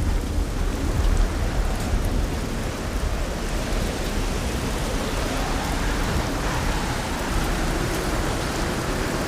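Heavy rain during a thunderstorm: a steady, even rush of rain noise over a deep, continuous low rumble.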